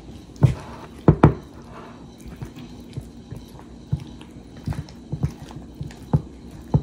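Fork stirring cheese-sauced macaroni in a glass baking dish: soft wet squelching of the noodles, with sharper knocks of the fork against the dish about half a second in, twice just after a second, and again near the end.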